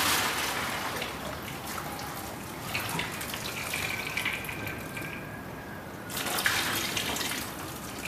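Spent descaling mixture of acid and water being poured from one bucket into another, splashing and trickling: the pour tapers off over the first seconds and a second splashy pour comes about six seconds in.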